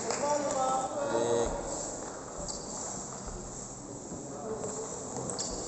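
Large-hall background with faint chatter between table tennis points. Near the end come a few sharp clicks of a celluloid ping-pong ball on bat and table as the next rally begins.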